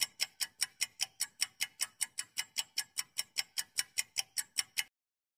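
Clock-ticking sound effect for an on-screen countdown timer: even, rapid ticks, about five a second, that stop abruptly just before the end.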